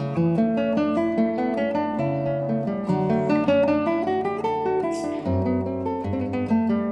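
Background music: a melody of quickly plucked notes over a bass line.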